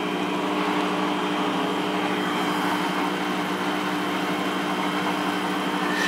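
Washing machine running with a steady hum of several held tones and an even hiss.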